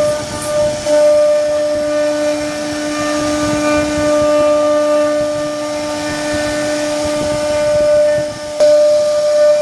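CNC router spindle whining at a steady pitch as its bit carves a wooden panel, over the hiss of the cut. The sound dips briefly and jumps back near the end.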